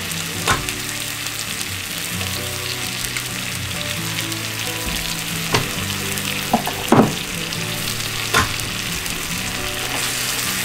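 Tomatoes, garlic and shallot in fish sauce and soy sauce sizzling in a small nonstick frying pan on an electric coil burner: a steady frying hiss with a few sharp clicks, the loudest about seven seconds in.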